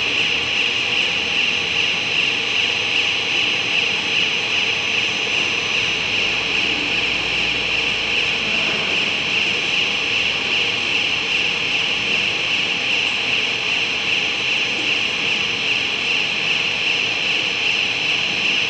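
Compound bubble film production line running: a steady, loud machine hiss with several constant tones underneath, unchanging as the foil-backed bubble film winds onto the roll.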